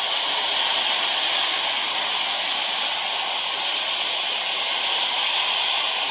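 U Class No. 31806 steam locomotive releasing a large volume of steam, a loud, steady hiss without chuffing.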